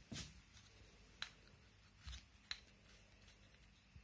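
A handful of faint, sharp plastic clicks, spread a second or so apart, as the small LED torch head of a folding walking cane is handled and its switch pressed.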